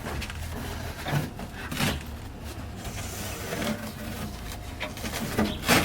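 Intermittent scraping, rubbing and light knocks of hand work on the car's body, over a low steady hum.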